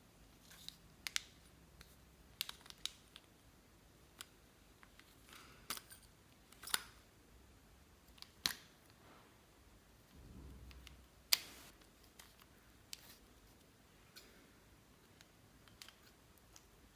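Slime being worked by hand, giving scattered sharp clicks and pops, about a dozen in all, with a short, duller squelch a little past the middle.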